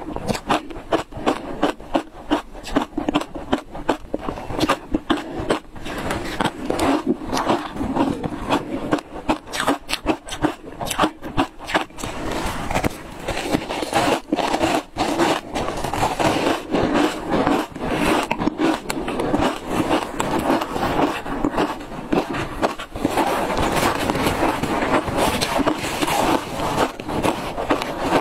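Ice chunks dusted with matcha powder being bitten and chewed close to the microphone: a dense, continuous run of sharp cracks and crunches.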